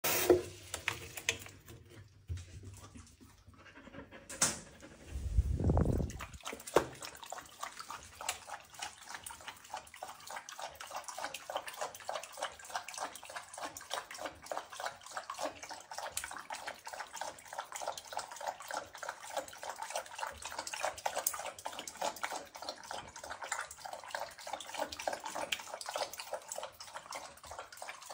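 A puppy lapping water from a bowl in quick, steady laps from about seven seconds in. Near the start a tap runs briefly into the bowl.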